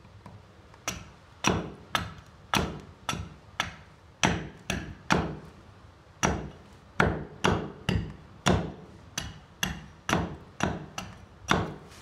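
Forged SIBIN axe chopping a stained oak blank held upright on a wooden block: a series of about twenty sharp, crisp blows, roughly two a second, starting about a second in.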